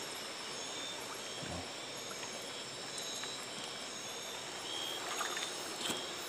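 Steady chorus of night insects, several high-pitched trilling tones held over a soft hiss, with a few brief clicks and rustles near the end.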